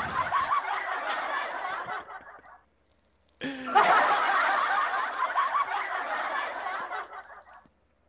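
A man laughing in two long breathy fits. The first dies away about two and a half seconds in, and the second starts again a moment later and runs for about four seconds.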